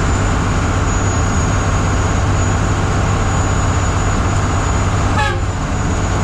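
Loud, steady vehicle drone, a low hum under engine and road noise, from the Grumman running; a short falling squeal sounds about five seconds in.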